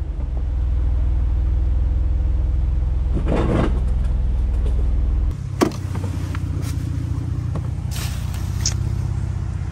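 2005 Jeep Liberty running along a rough trail, a steady low engine drone. A short burst of rough noise comes about three and a half seconds in and a sharp knock about two seconds later, and the drone's low tone shifts abruptly just before the knock.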